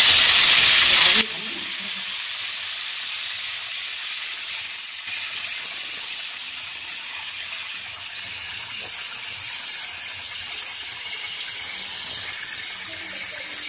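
Aluminium pressure cooker's whistle weight blowing off steam as the cooker reaches pressure: a very loud hiss for about a second, then steady hissing of escaping steam.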